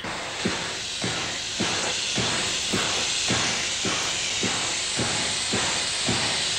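NZR AB class steam locomotive hissing steam steadily, with a regular pulsing beat a little under twice a second.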